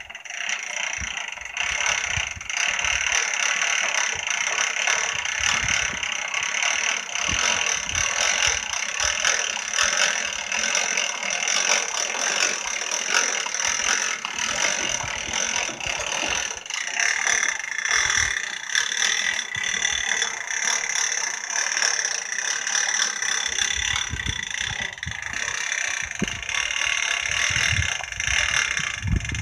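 Hand-cranked gear winch on a homemade wrecker boom being cranked, its gears and ratchet pawl clicking rapidly and without a break as the boom is let down.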